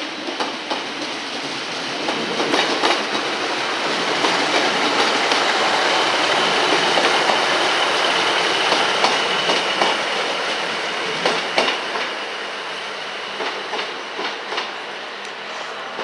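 A train passing along the track: a rushing rumble that swells to its loudest in the middle and fades towards the end, with the wheels clicking over rail joints.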